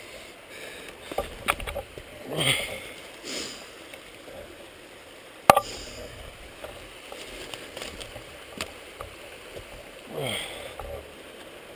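Faint steady rush of a stream, with scattered rustles and a single sharp click about five and a half seconds in.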